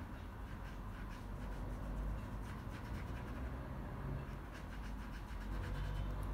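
Thin paintbrush stroking black paint onto canvas paper: a run of short, faint scratchy strokes over a steady low hum.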